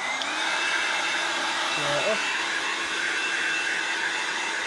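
Black+Decker electric heat gun switched on, its fan motor spinning up with a brief rising whine and then blowing steadily.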